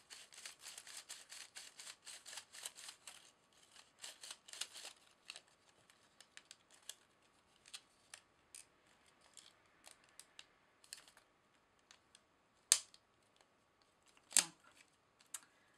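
Plastic film-developing spiral reel ratcheting as its two halves are twisted back and forth to wind 35mm film on, a quick run of small clicks that thins out to scattered clicks. Two sharper snaps come near the end.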